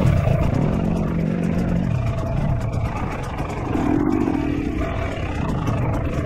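Dirt bike engine running, its pitch shifting up and down with the throttle.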